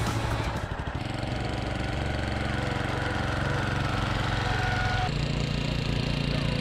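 Small petrol engine of a Toro walk-behind reel mower running steadily while the mower is pushed along. The engine note changes abruptly about a second in and again about five seconds in.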